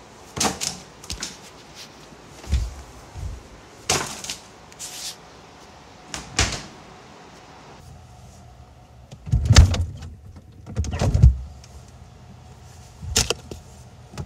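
Rummaging in a fridge: a plastic bag crinkling and food containers knocking on the shelves, in a string of irregular rustles and knocks. The two heaviest thuds come about two-thirds of the way through.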